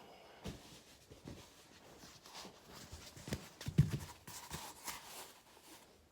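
Foam rolling: rustling and shifting of body and clothing against the roller, with a series of sharp clicks and pops of joints cracking, the loudest about four seconds in.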